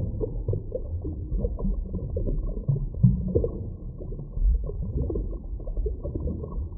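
Small stream's water heard underwater: a low, muffled rumble of flowing water with irregular bubbling and gurgling, one louder gurgle about three seconds in.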